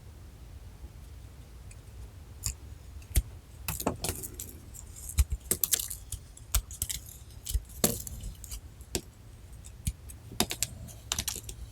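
Irregular sharp clicks and clinks of small hard objects being handled, coming in uneven clusters after a quieter opening.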